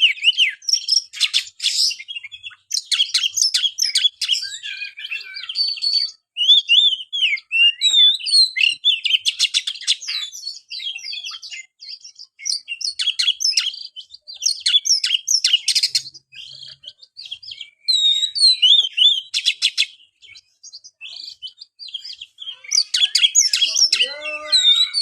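Oriental magpie-robin singing a long, varied song of whistled phrases broken by rapid rattling trills, with only short pauses.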